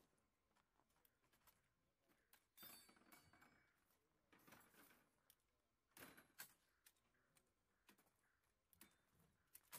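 Faint metal clicks and clacks of an M240B machine gun's parts being handled and fitted together during assembly, scattered and irregular, the loudest about six seconds in.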